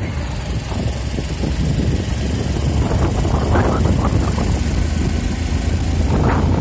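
Motorcycle engine running steadily while riding, with wind buffeting the microphone in gusts.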